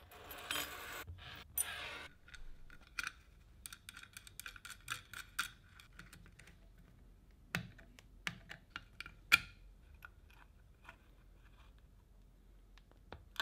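Irregular light clicks and taps of small hard objects being handled, after a short scraping rustle in the first two seconds.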